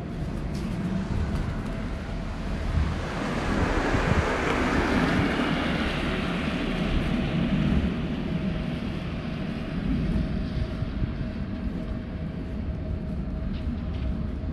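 A vehicle's steady low rumble with a constant hum, and a rush of noise that swells over a few seconds in the middle and then fades.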